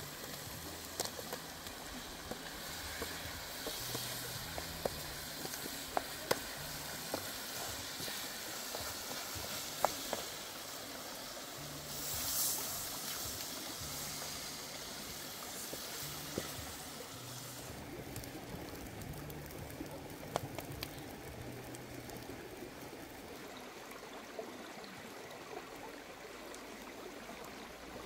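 Steady rush of running creek water, with scattered sharp clicks and knocks of cooking at a steel wok and a brief louder hiss about halfway through.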